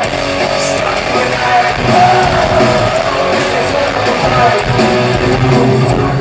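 Rock band playing live: guitars strumming over a steady bass line in a passage with no singing.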